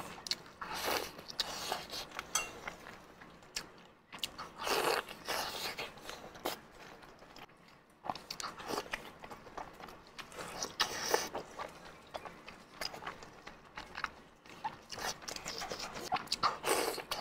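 Biting and chewing of sauce-coated pork intestine, close to a clip-on microphone. There is irregular mouth clicking, with louder bursts of biting about a second in, around five and eleven seconds, and near the end.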